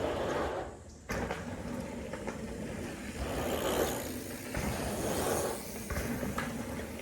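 Mountain bike riding a dirt jump line: tyres rolling and wind noise on the microphone, swelling and fading, with an abrupt return of the noise about a second in.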